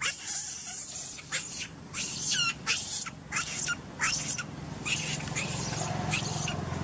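Baby macaque squealing over and over in short, high-pitched squeaks, a few of them falling in pitch. The cries of a scared or upset infant.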